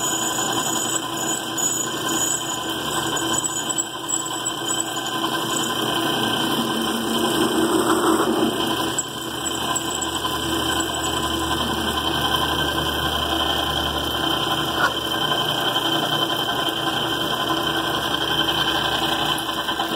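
Worn metal lathe running steadily while turning down a threaded rod. It runs on without a break and winds down just after the end.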